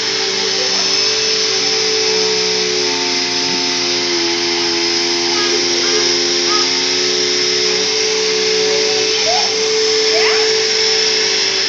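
Upright bagless vacuum cleaner running steadily on carpet: a constant rushing hum with a steady motor whine, its tone wavering for a few seconds in the middle.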